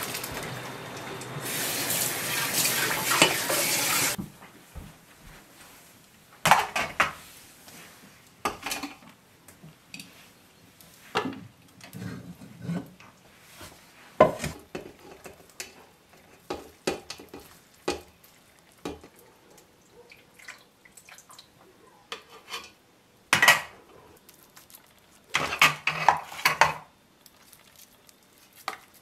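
Par-boiled rice poured from a metal strainer into a pot, a wet rushing hiss for about four seconds. Then scattered clinks and knocks of metal pots, lids and a spoon.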